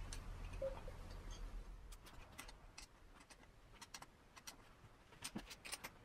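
Faint, scattered light clicks and metal taps from a small wrench and multimeter test probes handled on a throttle body, with a small cluster of clicks near the end.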